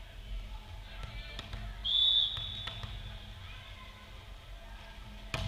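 Referee's whistle: one short, steady blast of about half a second, signalling the server to serve. A few faint volleyball bounces on the hard court come around it, and a sharp slap near the end is the ball being served.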